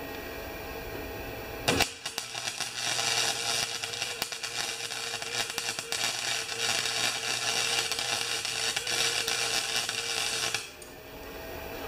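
Wire-feed (MIG) welder arc crackling steadily for about nine seconds, starting with a sharp crack about two seconds in and stopping abruptly near the end, while a bead is run on a thin snowblower transmission housing. It is a trial run, which the welder judges will work with a little more wire speed.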